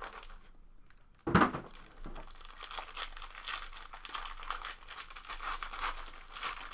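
A single sharp knock about a second in, then the foil wrapper of a trading-card pack crinkling and tearing as it is handled and opened.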